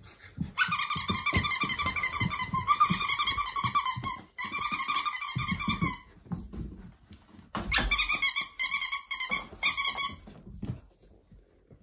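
Alaskan Malamute puppy whining in long, high-pitched, fluttering cries, three stretches of a few seconds each with short breaks, over soft thumps of movement on the floor.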